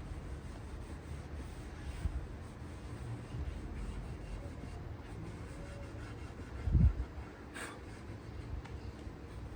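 Soft rubbing and wiping: a tack cloth drawn over a freshly sanded wooden table to pick up the dust. A single low thump comes about seven seconds in, with a brief click just after.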